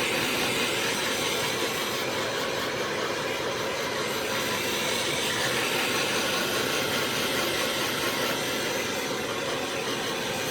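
A hand-held heat tool running with a steady rushing noise, heating the metal around a seized cylinder-head stud so that the metal expands and the stud can be loosened.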